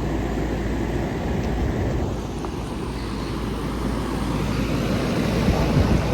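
Outdoor air-conditioner condensing units running, led by an American Standard Silver Series: a steady whoosh of the condenser fans over a low compressor hum.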